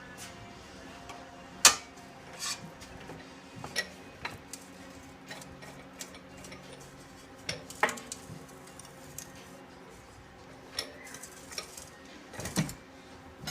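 Irregular metal clanks and taps from steel plate and tools being handled at a small hand-cranked slip roll, with a sharp clank about two seconds in.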